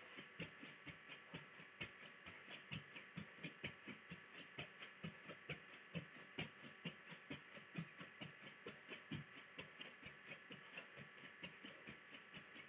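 Faint, quick footfalls, about three a second: feet landing on the balls of the feet as a person switches one foot forward and one foot back, heels never touching the floor.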